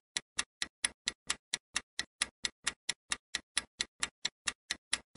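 Clock-ticking sound effect of a quiz countdown timer: short, sharp, evenly spaced ticks, about four and a half a second, counting down the time to answer.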